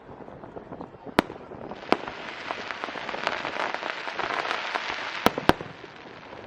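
Aerial fireworks going off: sharp bangs about a second in and a close pair near the end, with a dense crackling of many small pops from about two seconds in that swells and then fades.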